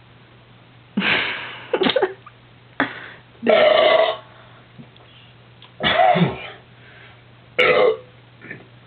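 A person burping loudly in a run of about six burps, some short and some drawn out, brought up by drinking Coors Light beer: "power burps".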